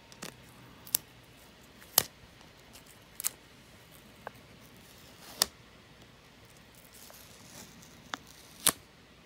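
Adhesive dust-absorber sticker pressed onto and pulled off a GoPro lens cover, again and again: short, sharp sticky ticks at irregular intervals, about five clear ones with a couple of fainter ones between.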